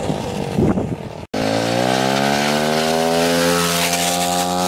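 A 110 cc pitbike's single-cylinder four-stroke engine running hard. The sound cuts off abruptly a little over a second in. It comes back at once, with the revs rising steadily as the bike accelerates.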